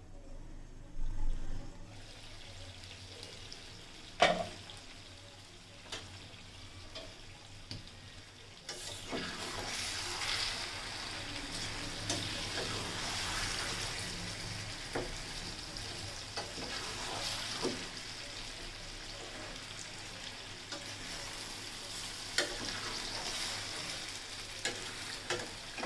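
Chicken curry with potatoes frying in oil in a pan while being stirred: a sizzle that grows louder about a third of the way in, with the spatula knocking and scraping against the pan every few seconds.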